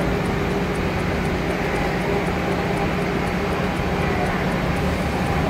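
A truck engine running steadily with a low, even drone, mixed with street traffic.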